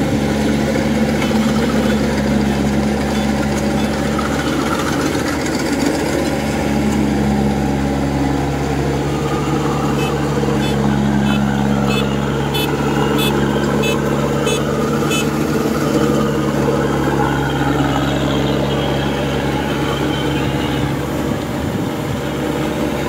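Kubota DC-105X rice combine harvester's diesel engine running steadily under load while it cuts and threshes standing rice. A run of sharp ticks comes through between about ten and fifteen seconds in.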